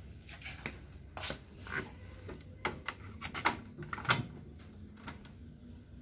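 Mechanical clicks and clunks of a Marantz 5000 cassette deck being loaded and started: the cassette seated, the door shut and the piano-key transport buttons pressed. It is a string of sharp clicks, the loudest about four seconds in.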